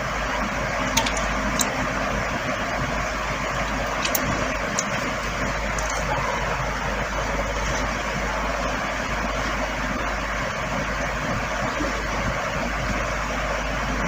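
Steady rushing background noise with no clear pitch, such as a fan, air conditioner or traffic hum, with a few faint soft clicks.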